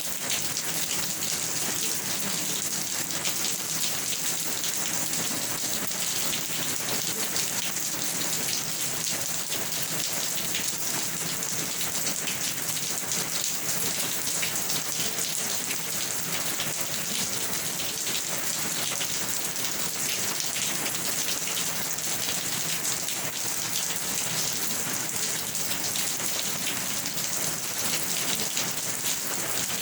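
Steady rain falling on a surface: a dense, even hiss of many drops that neither builds nor lets up.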